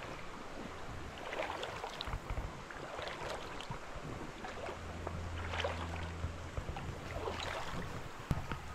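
Wading steps splashing through shallow water over a rocky riverbed, about one a second, over the steady rush of the river. A low wind rumble on the microphone comes in about halfway through.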